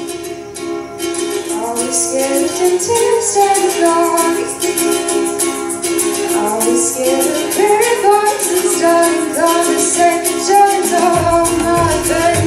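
A girl singing a solo through a handheld microphone over instrumental accompaniment; her voice comes in about a second in, and a bass line joins near the end.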